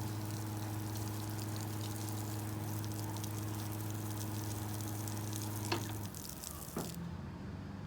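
Battery-powered spray pump humming steadily while water hisses out of the spray gun in a long stream, a reach that is called kind of weak. About six seconds in there is a click and the pump hum stops, and the spray hiss cuts off a second later.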